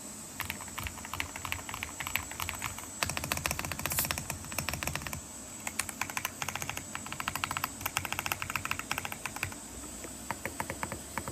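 Royal Kludge RK R75 mechanical keyboard being typed on: rapid runs of key clicks with short pauses between them, thinning out to scattered keystrokes near the end.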